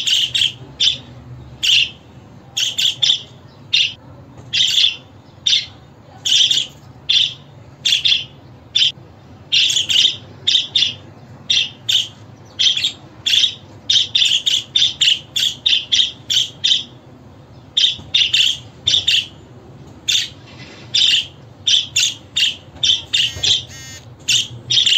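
Budgerigar calling: a long series of short, sharp chirps and squawks, some singly and some in quick runs of several, over a low steady hum.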